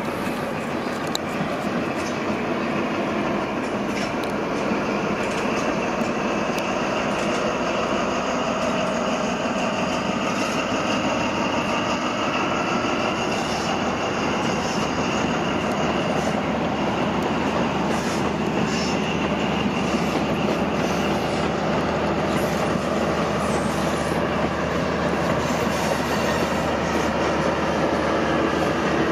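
High Speed Train (HST) with Class 43 diesel power cars passing at speed: a steady rumble of the coaches' wheels on the rails with a high whine over it, growing a little louder near the end as the rear power car draws nearer.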